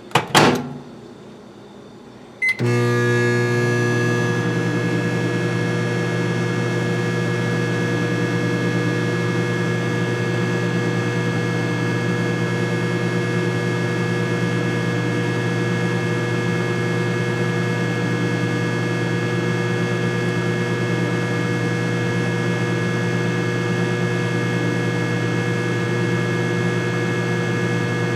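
Microwave oven door shut with a sharp knock, then after a short pause the microwave starts and runs with a steady hum while cooking two eggs.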